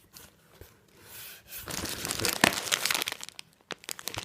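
Packaging crinkling and rustling as items are unpacked from a box: quiet at first, then a spell of dense crackling from about two seconds in, thinning to a few scattered crackles near the end.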